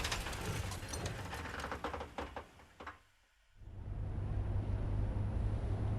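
Film sound of a car crash aftermath: the noise of the impact dies away with scattered clicks and rattles of debris, drops to a brief silence about three seconds in, then a low steady rumble rises and holds.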